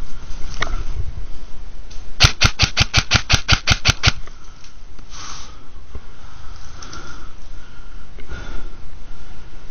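Airsoft gun firing a rapid, even string of about fourteen shots, some seven a second, lasting about two seconds and starting about two seconds in.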